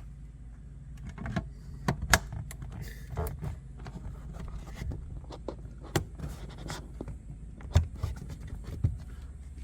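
Hands handling and fitting a plastic interior trim cover, with scattered clicks, taps and light scrapes over a steady low hum; the loudest knocks come about two seconds in and near the end.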